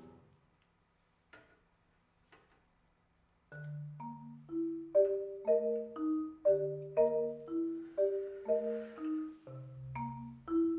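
A piano chord dies away into a short silence, then a marimba starts playing with mallets: a steady running pattern of struck notes, with deeper notes ringing underneath.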